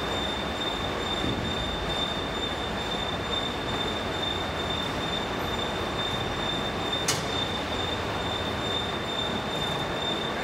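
A 150-ton hydraulic rubber moulding press running, with a steady rushing noise and a steady high whine from its hydraulic pump while the ram lifts the lower platen to close the mould. There is one sharp click about seven seconds in.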